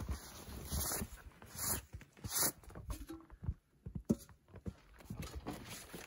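Footsteps crunching in snow and gear being handled in irregular bursts, with a sharp knock about four seconds in.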